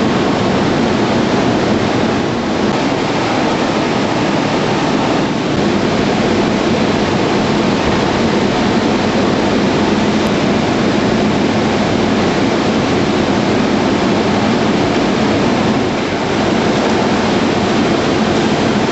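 Steady, loud roar of woodworking-shop machinery running.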